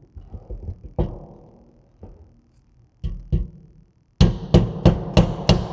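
Orange hammer tapping the end of a metal Aston Martin DB9 grille bar held on a wooden jig, driving the bar to break it loose from its plastic uprights. A few separate taps come first, then a quick run of about four taps a second near the end, each one ringing briefly.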